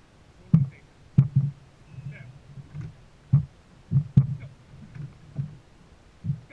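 Irregular dull thumps on a dragon boat, about eight of them unevenly spaced, some with a sharp knock at the start, as water and paddles strike the hull.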